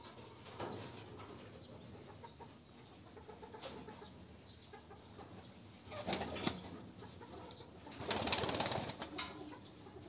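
Domestic pigeons flapping their wings: a short burst of wingbeats about six seconds in and a longer one around eight seconds, followed by a sharp click.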